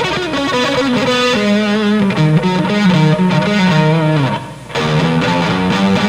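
Fender Stratocaster electric guitar played on its front (neck) pickup: a freely improvised line of sustained notes with bends and vibrato. The playing breaks off briefly about three-quarters of the way through, then goes on.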